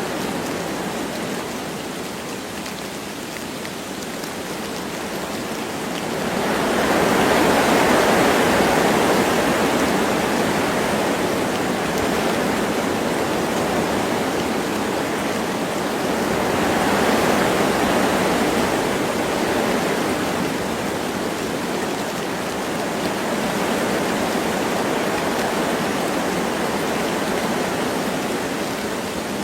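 Wind blowing through forest trees with light rain, a steady rushing hiss. The wind swells in gusts about six seconds in and again around seventeen seconds, then eases.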